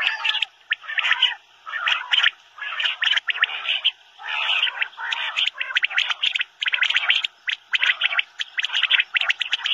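Common quail (Coturnix coturnix) calling: short, rapidly pulsed calls repeated one after another with brief gaps.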